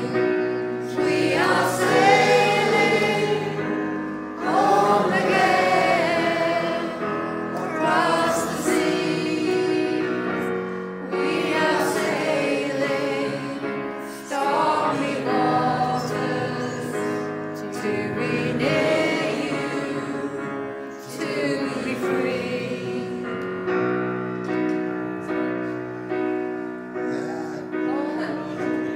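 A choir singing in slow phrases over steady held keyboard chords.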